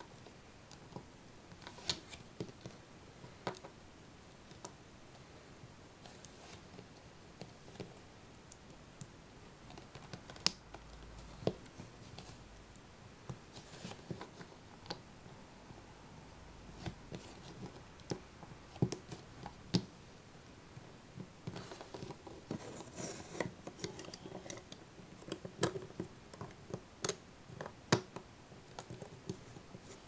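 Plastic LEGO bricks clicking and tapping as they are pressed together and handled on a tabletop, in irregular sharp clicks with short pauses between them.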